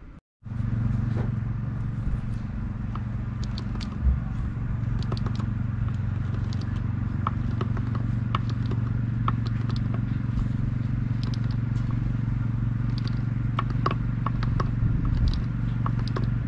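A machine running with a steady low hum, with many scattered light clicks and scrapes over it. It starts just under half a second in, after a brief silence.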